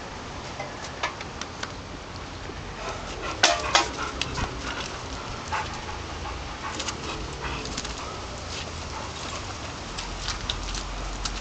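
An American bulldog and a Staffordshire terrier play-fighting, their scuffling on gravel and dry ground making a run of crackles and scrapes along with dog sounds. Two sharp knocks stand out about three and a half seconds in.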